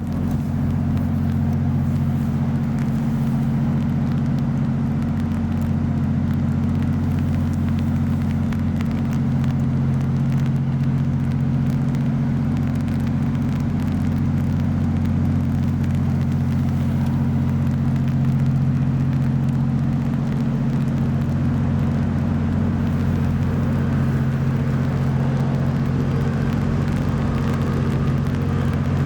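Steady low engine drone, running at an even pitch without change.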